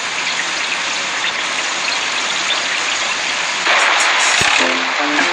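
Heavy rain falling, a steady hiss that turns louder about two-thirds of the way through. A few notes of music come in near the end.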